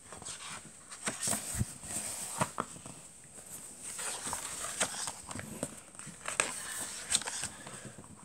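A large picture book handled by hand: the cover is opened and the pages are turned, with paper rustling and sliding and irregular light taps and clicks as the pages are pressed flat.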